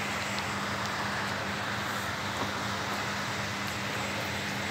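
Steady rain falling, an even hiss with a steady low hum underneath.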